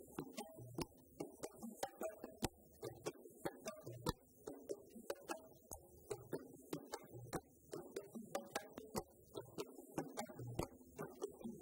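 West African drum ensemble playing a fast, interlocking rhythm: djembes struck by hand and dunun bass drums hit with wooden sticks, several sharp strokes a second.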